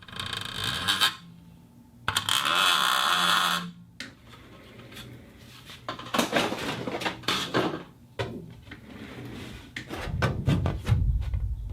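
Plastic cup handled for foley: a rattle at the start, a sustained rough crinkling scrape about two seconds in, then a run of light clicks and taps, with dull low knocks near the end.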